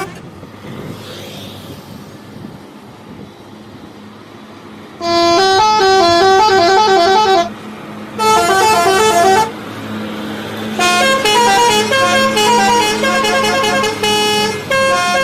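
Bus telolet horn, a set of tuned air horns playing a short stepping melody, sounding loudly in three bursts starting about five seconds in, the last and longest near the end. Before it, only quieter street noise.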